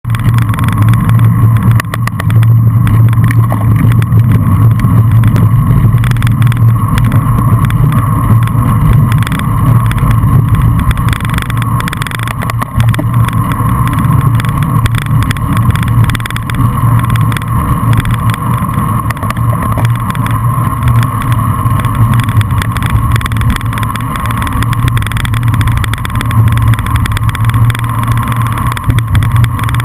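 Wind rushing over a handlebar-mounted camera's microphone on a fast bicycle descent, mixed with tyre and road rumble through the mount; loud and steady.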